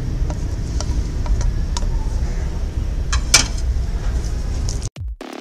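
Steady low kitchen rumble under light clicks and taps of a bowl and silicone spatula against a non-stick pan, with a louder clack about three seconds in. It cuts out near the end.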